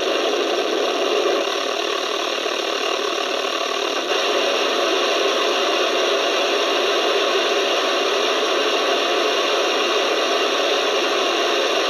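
Steady static-like noise with a rattling, buzzing edge and faint steady tones running through it, from a NOAA weather radio receiver's speaker; it dips briefly about four seconds in. It is an unexplained signal on the weather radio channel, not a voice broadcast.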